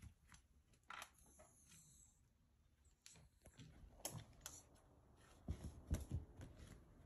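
Near-silent room with faint scattered small clicks and taps, and a few soft thumps about five and a half to six seconds in.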